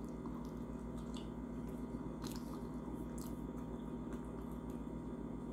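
A man biting into and chewing a Jamaican beef patty, soft wet mouth sounds with a few faint clicks, over a steady low hum.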